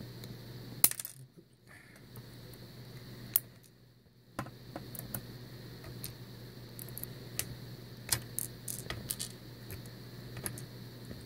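Small metal lock pins and tweezers clicking and tapping against each other and the pin tray while the pins are handled: a sharp click about a second in, then scattered light clicks, with a busier run of them in the later part.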